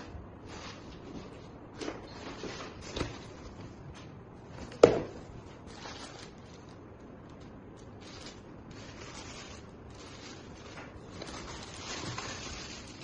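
Irregular rustling and handling noises with scattered clicks, and one sharp knock about five seconds in.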